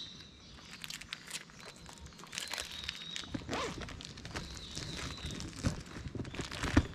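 Footsteps crunching irregularly on a hiking trail, a little louder in the second half. A faint thin high tone comes and goes about three times.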